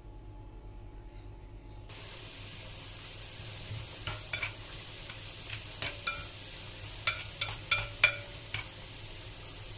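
Grated carrot and chopped onion sizzling in butter in a frying pan, starting about two seconds in. A utensil knocks and scrapes against the pan a dozen or so times as the mixture is stirred, loudest near the end.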